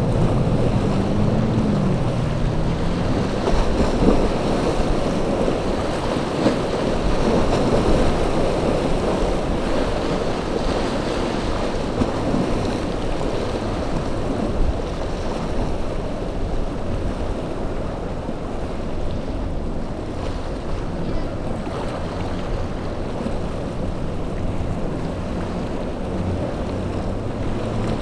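Waves and surf breaking, with wind buffeting the microphone. A boat engine is heard at the start, its pitch rising and falling, then sinks under the surf.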